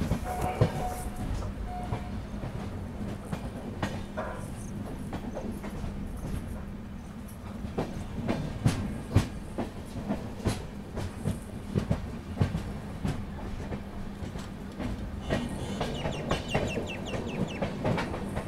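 Passenger train running, its wheels knocking irregularly over rail joints above a steady low hum.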